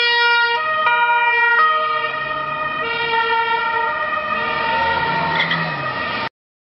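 Several emergency-vehicle sirens sounding together, their tones stepping between pitches and wavering. They cut off abruptly near the end.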